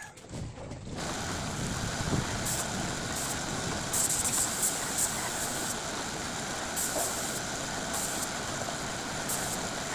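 Compressed-air paint spray gun hissing in short bursts, several times over, as the trigger is pulled and released, over a steady background noise.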